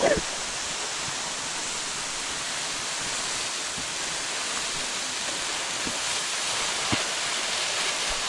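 Waterfall rushing steadily, growing slightly louder toward the end, with a short louder sound at the very start.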